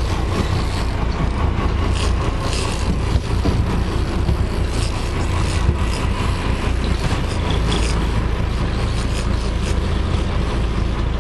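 Fishing boat's engine running steadily, a low rumble with wash and wind noise over it.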